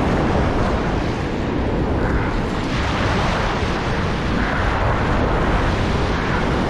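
Steady rush of surf breaking and washing around, with wind buffeting the microphone into a low rumble.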